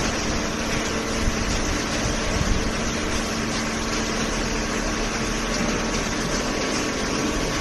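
Horizontal cardboard baler machine running: a steady mechanical hum with a broad noisy wash, no distinct strokes or impacts.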